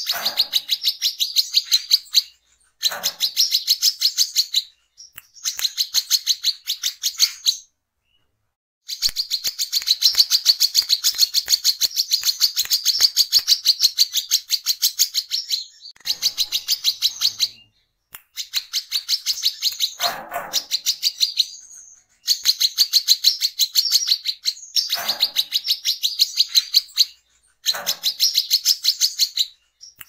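Male brown-throated sunbird singing in a rapid chatter of high, quickly repeated notes, delivered in bursts of a few seconds with short pauses between. The longest unbroken run comes about a third of the way in.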